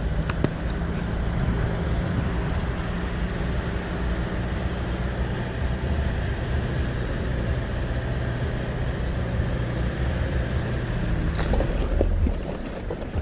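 Steady low rumble of a moving vehicle's engine and road noise, with a few faint clicks about half a second in.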